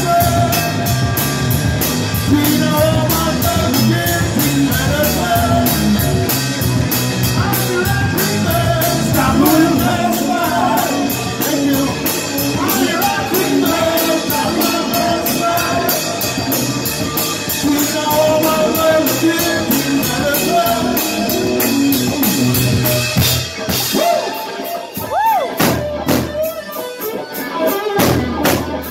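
Live rock band playing through amplifiers: electric guitar, electric bass, drum kit and a male lead vocal. Near the end the low end drops out and the band thins to a sparser break.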